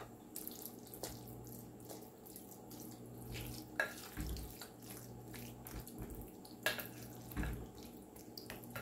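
Faint wet squishing of a hand pressing a moist shredded-chicken and vegetable filling down in a glass pie dish, with a few light clicks and taps.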